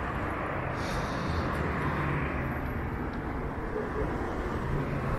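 Street traffic: cars driving past on a city road, a steady mix of engine and tyre noise.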